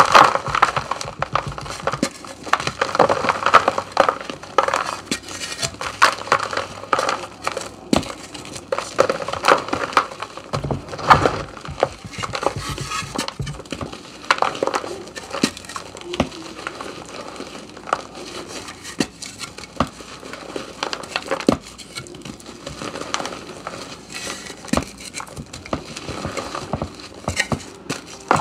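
Reformed gym chalk being crumbled and crushed by hand, with irregular dry crunches and crackles as chunks break off the block and fall into a pan of loose powder.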